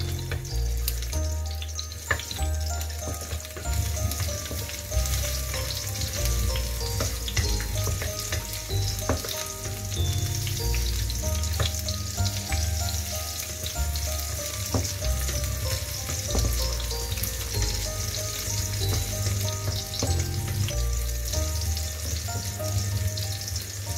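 Garlic cloves sizzling in hot cooking oil in a nonstick wok, stirred with a wooden spatula that scrapes and taps the pan now and then. Background music plays underneath.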